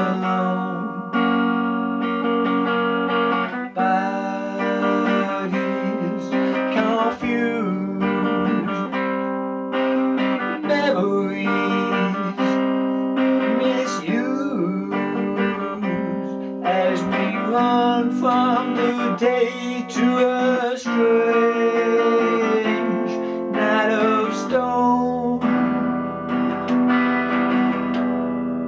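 Guitar music: an instrumental passage of shifting chords and notes, ending on a held chord that rings out near the end.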